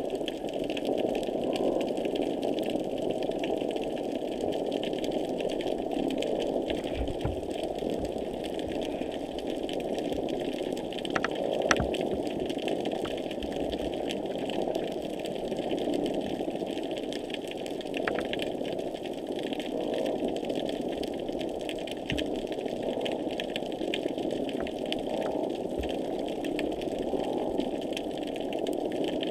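Underwater noise picked up by a hydrophone: a steady, machine-like hum with many scattered sharp clicks and ticks. These are the repetitive underwater noises that are unusually intense on this dive.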